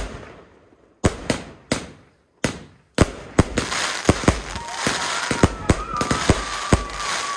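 Fireworks going off. A few separate sharp bangs come first, then from about three seconds in a dense barrage of bangs and crackling, with whistling tones over the second half.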